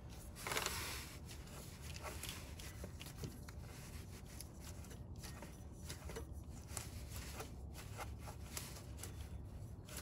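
Faint rustling and scattered light clicks as a gloved hand turns and handles the belt tensioner pulley on a Toyota 5.7L V8 with the drive belt off, over a low steady background hum. A brief louder rustle comes about half a second in. The pulley has no play, but its bearing can be heard when it is spun, which is taken as a sign that the bearing is going.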